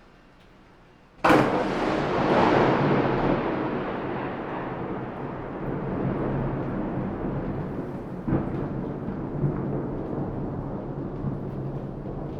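A close thunderclap: a sudden sharp crack about a second in, then a long rolling rumble that slowly dies away, with a smaller crack near the end, over steady rain.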